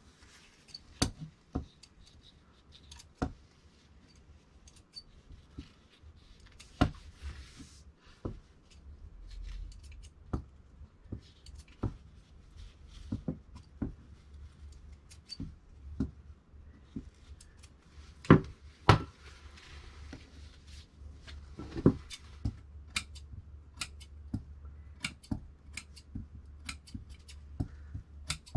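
Large dressmaking shears cutting thin lining fabric: a run of sharp snips and blade clicks with soft fabric rustle between them, and two louder clacks about two-thirds of the way through.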